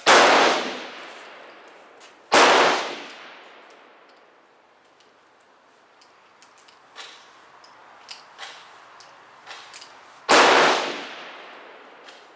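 .44 Special single-action Bisley revolver fired one-handed, three shots: one right at the start, the next about two seconds later, and the third after a pause of about eight seconds, each shot with a long echoing tail. Fainter sharp clicks come in between the shots.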